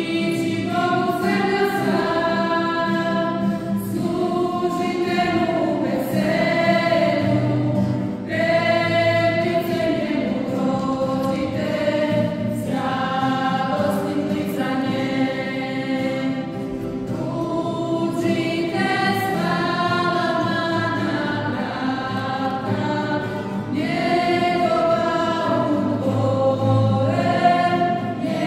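Church choir singing a hymn in long held notes.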